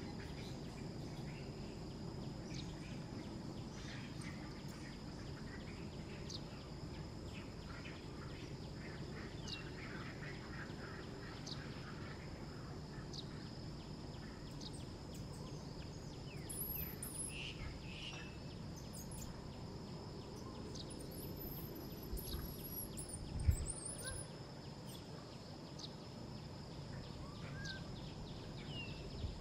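Outdoor ambience: steady low background noise with a constant high insect drone, scattered bird chirps in the middle, and a single thump about four-fifths of the way through.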